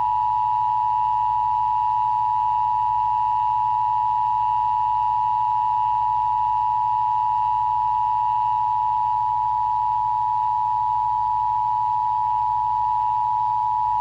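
Emergency Broadcast System Attention Signal: two tones sounded together as one steady, unbroken dual tone at a constant level. It is the alert tone of an EBS test, played between the spoken test announcement and the explanation of the system.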